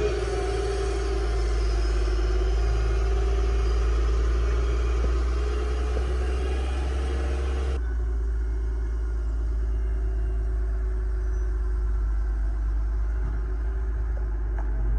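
Excavator's diesel engine running steadily with a deep low hum. About halfway through the sound changes abruptly and the higher noise drops away.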